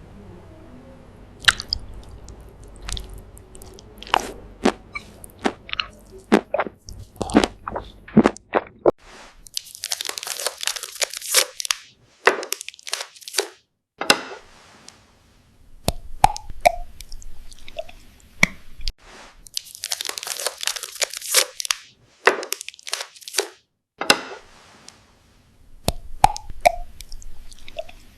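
Close-up crunchy chewing of food, sharp bites and crunches coming in irregular runs with short pauses, two runs of rapid dense crunching standing out as the loudest.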